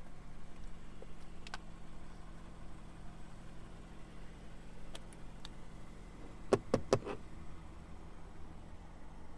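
A few faint clicks, then a quick run of four sharp knocks about two-thirds of the way in, over a steady low hum.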